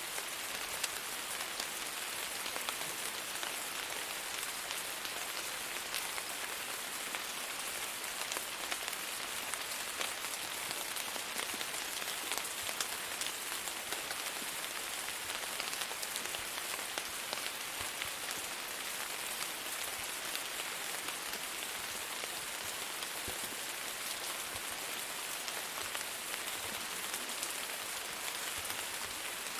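Steady rain: an even hiss with many small, sharp drop impacts throughout.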